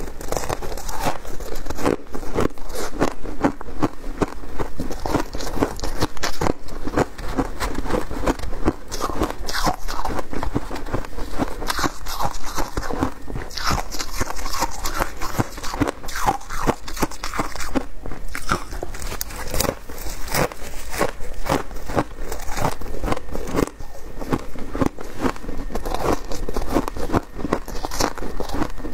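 Shaved ice crunching close to the microphone, a dense run of irregular crunches as it is bitten and chewed and gloved fingers dig into the packed ice.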